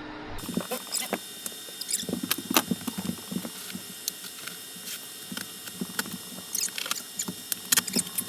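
Old RV carpet being worked loose and pulled up from the floor: irregular scratching, crackling and sharp clicks, busiest a couple of seconds in and again near the end.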